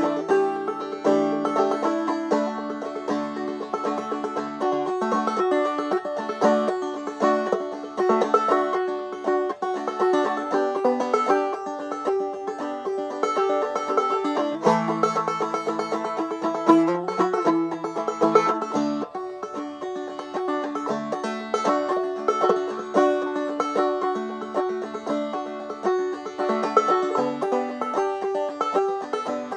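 Clawhammer banjo played solo in double D tuning: an old-time tune in a steady rhythm of picked melody notes and brushed strums.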